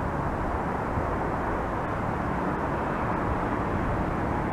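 Steady outdoor background noise: an even low rumble with no distinct events.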